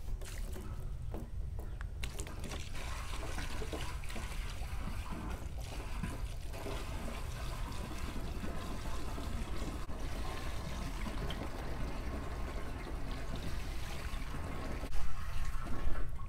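Rainwater pouring from a bucket through a plastic funnel into a 50-gallon plastic drum, a steady trickling stream. A few louder knocks come near the end.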